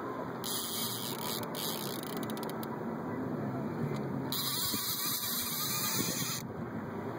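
Steady rushing wind and water noise on an open boat, with wind buffeting the microphone.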